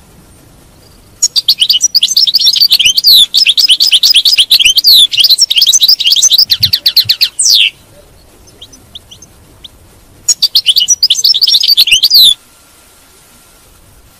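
European goldfinch singing: a fast twittering run of sweeping, high notes for about six seconds, a few faint notes, then a second shorter burst of song.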